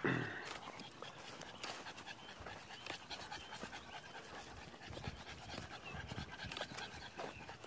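A dog panting close by, with small scuffs and clicks from walking on a muddy track. A short loud burst right at the start is the loudest sound.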